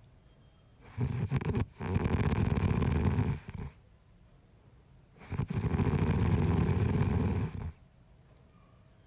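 A man snoring: two long snores, the first starting about a second in and the second a few seconds later, with quiet between them.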